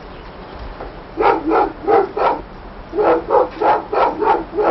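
A dog barking in two quick runs: four barks starting about a second in, then after a short pause six more, about three barks a second.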